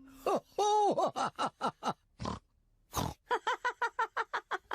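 Cartoon pig characters snorting and laughing. A drawn-out snorting call comes first, then a quick run of short snorting giggles.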